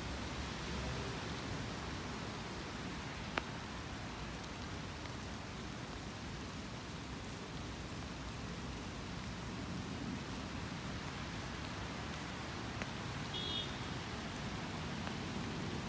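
Steady light rain falling, an even hiss, with one sharp tick a few seconds in and a brief high chirp near the end.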